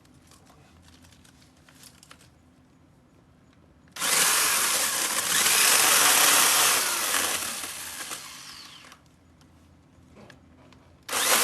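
Corded RYOBI electric chainsaw starting abruptly about four seconds in. It runs loud for about three seconds, then dies away gradually over the next two seconds. It starts again suddenly just before the end.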